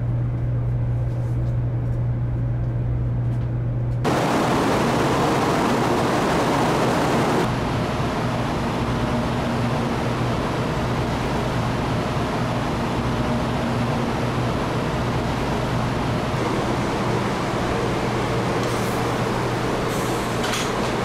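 Taiwan High Speed Rail train heard from inside a carriage: a steady low hum, joined suddenly about four seconds in by a louder rushing running noise that carries on steadily.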